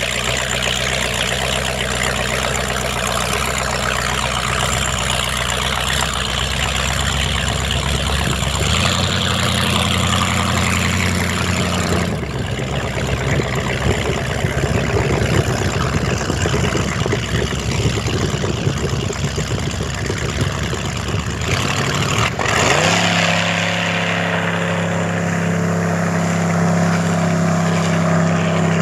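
Ford 460 big-block V8 in a Kona speedboat running steadily, its note stepping up in pitch a few times, with a quick rising sweep a little past the middle before it holds a higher, steady pitch. A rushing noise of water and air runs under the engine.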